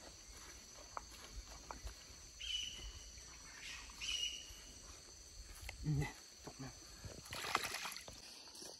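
Faint rustling and handling of a cloth sack on a stony stream bank, with small clicks of stones and debris. Two short high chirps come about a second and a half apart midway, a brief low grunt about six seconds in, and a louder rustle near the end.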